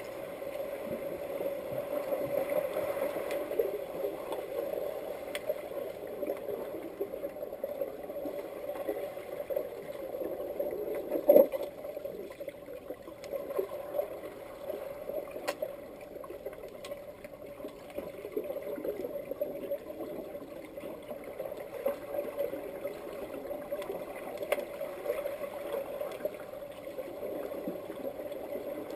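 Muffled underwater sound heard through a submerged camera in a swimming pool: steady churning water noise from swimmers and their fins, with scattered clicks and knocks and one sharp knock about eleven seconds in.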